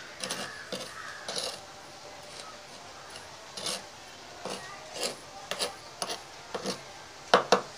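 Metal spoon scraping and tapping through a pile of sugar and potassium permanganate powder on a hard tabletop, mixing the two in irregular strokes, with two sharper clinks near the end.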